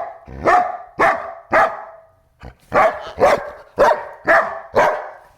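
German Shepherd dog barking repeatedly, about two loud barks a second, with a brief pause about two seconds in.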